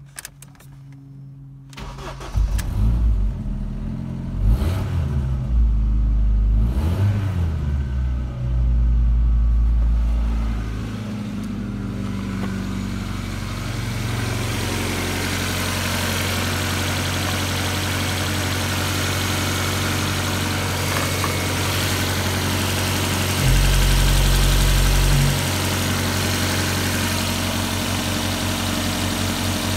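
Ford Focus 1.6 Zetec-SE four-cylinder petrol engine starting about two seconds in, revving up and down several times, then settling into a steady idle with one short louder stretch later on. Heard first from inside the cabin, then under the open bonnet.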